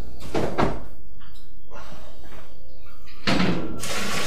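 Two clunks as a stainless stockpot is handled, then, a little over three seconds in, near-boiling water starts pouring from the pot into a cooler mash tun with a steady splashing sound.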